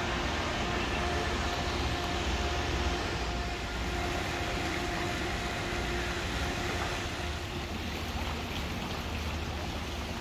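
Steady low rumbling noise with a faint steady hum, without speech or music.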